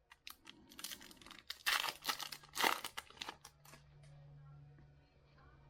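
A Bowman baseball card pack's wrapper being torn open and crinkled by hand. An irregular run of crackles and rips lasts about three seconds, then it goes quiet.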